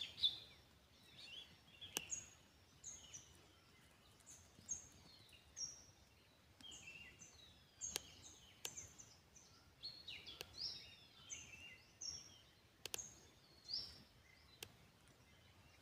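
Faint chorus of small wild birds: many short, high, down-slurred chirps one after another, with a few sharp clicks among them.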